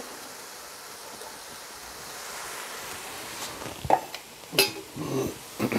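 Steady sizzling hiss from pork and vegetables frying in a cast-iron Dutch oven as canned green beans are tipped in. A few sharp knocks come near the end.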